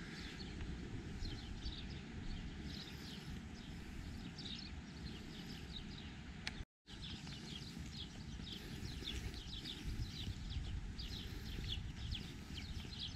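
Small birds chirping in quick repeated bursts over a steady low rumble. The sound cuts out completely for a moment about halfway.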